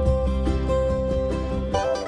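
Background music led by plucked strings, notes picked in a quick, regular pattern over a steady bass.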